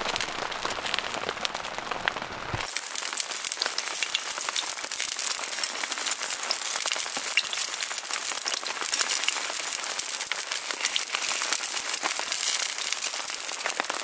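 Rain pattering, then, from about three seconds in, a dense, even crackle of jeon frying in oil in a pan over a wood stove.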